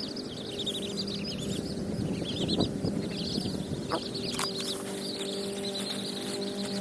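Birds chirping in a steady run of short, high, repeated notes, over a faint low steady hum.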